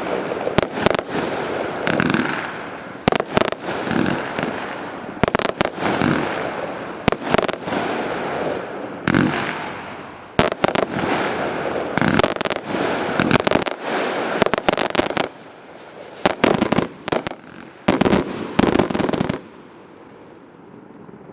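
399-shot fireworks cake firing: repeated sharp bangs, some in quick clusters, with a crackling hiss between them, stopping about 19 seconds in as the cake finishes.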